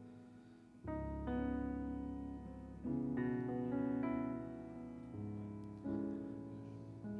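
Slow keyboard music: sustained chords held for two to three seconds each, changing three times.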